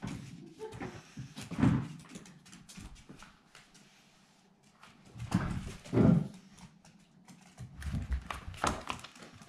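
A fox terrier puppy playing around the furniture: three bursts of scrambling, thumping and low growly noises, the loudest about two-thirds of the way through, with a quiet stretch in the middle.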